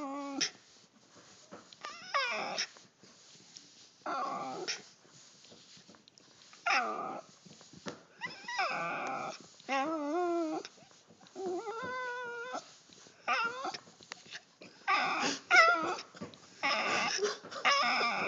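West Highland white terrier whining: a string of wavering, pitched whines and whimpers a second or two apart, some sliding down in pitch.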